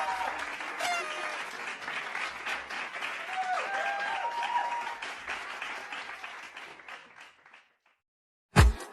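A crowd of children cheering and clapping, with high-pitched shouts over the applause, fading out about seven and a half seconds in. After a second of silence, loud music starts just before the end.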